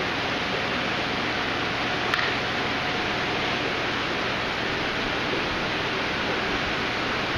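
Steady rushing water-and-air noise of running aquarium filtration, with a single small click about two seconds in.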